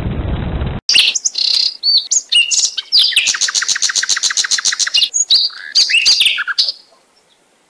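A songbird singing: varied high chirps and whistles with a rapid trill of about ten notes a second in the middle, fading out near the end. Before it a steady rushing noise cuts off under a second in.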